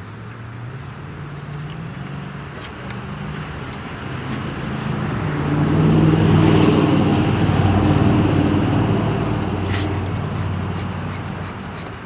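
A motor vehicle's engine driving past, swelling to its loudest about halfway through and then fading away. A single sharp click comes near the end.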